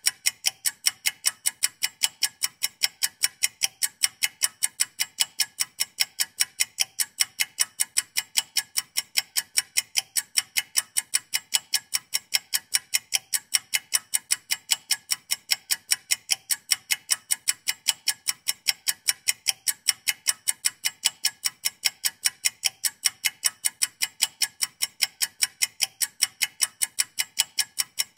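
Ticking-clock countdown sound effect: fast, perfectly even, sharp ticks marking the two-minute timer as it runs.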